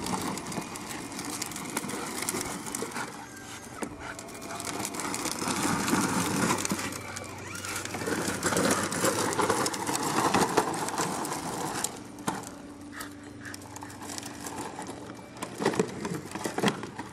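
A dog's heavy, noisy breathing, swelling and fading in slow cycles a few seconds apart.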